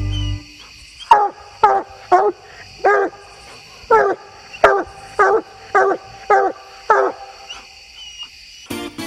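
Coonhound barking treed at the foot of a tree, about ten short chop barks, each dropping in pitch, roughly one every half second to second. This is the bark a hound gives when it has its quarry up a tree.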